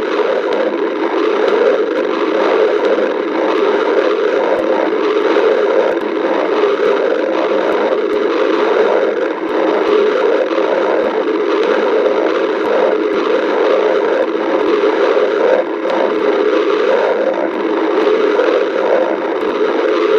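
Stomach growling and gurgling picked up close to the belly: one continuous churning rumble without pauses, with faint clicks scattered through it.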